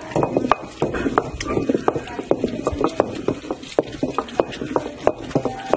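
Heavy stone pestle pounding chopped raw meat in a large stone mortar, mincing it. It knocks at an uneven rhythm of about three strikes a second.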